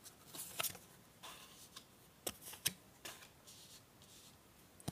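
Oracle cards being shuffled and handled, a scatter of soft papery flicks and rasps during the first three seconds.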